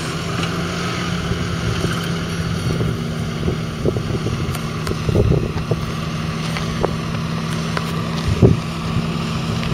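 Fendt 824 Vario's 6.1-litre six-cylinder diesel engine running steadily under load, pulling a deep plough through the soil. Wind buffets the microphone, loudest about five and eight and a half seconds in.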